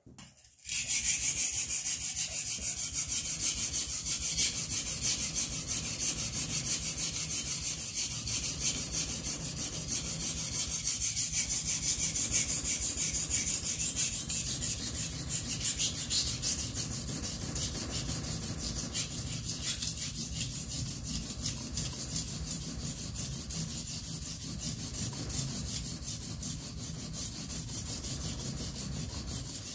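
Steel kitchen knife blade being rubbed back and forth on a wet sharpening stone: a steady gritty scraping that starts about a second in.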